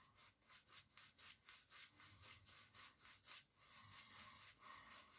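Boar-bristle shaving brush working lather over a stubbled face: faint, quick swishing strokes, several a second, less regular in the last second or two.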